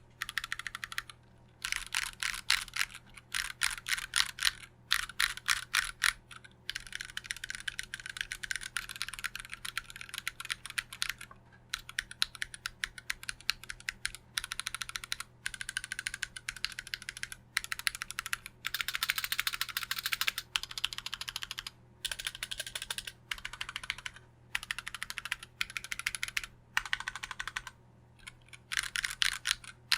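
Typing on a custom mechanical keyboard with unlubed Gateron Black Ink linear switches in an aluminium Tofu65 case with a brass plate: fast keystroke clacks in runs of a few seconds, broken by short pauses.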